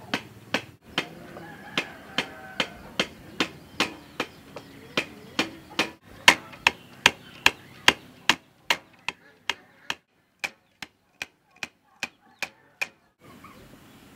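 A thin stick beating raw cotton against the inside of a large woven bamboo basket, to pull it apart, fluff it up and clean out impurities. Sharp, even strikes at about two and a half a second, which stop about a second before the end.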